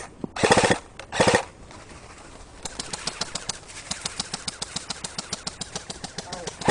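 Airsoft guns firing. Two short, loud full-auto bursts come in the first second and a half, then a longer, quieter, steady string of shots at about nine a second runs for roughly four seconds.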